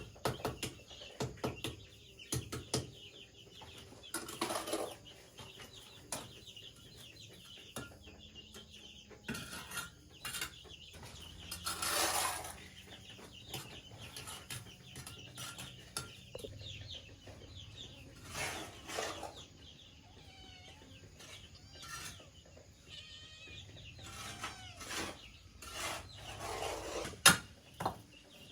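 Chickens clucking, with small birds chirping and scattered knocks and clatter throughout, and a few louder noisy bursts.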